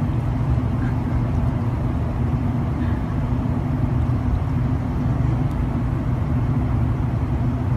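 Steady low rumble with a faint even hum, like a running vehicle's engine.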